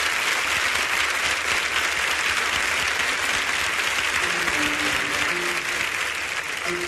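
A studio audience applauding steadily, a dense sound of many hands clapping. About four seconds in, music starts faintly underneath as the applause begins to ease.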